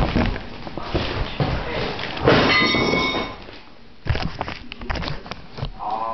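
Handling noise as a CD sleeve and clear plastic bag are moved about on a work table: irregular clicks, knocks and rustling, with a louder, denser rustle lasting about a second a little over two seconds in.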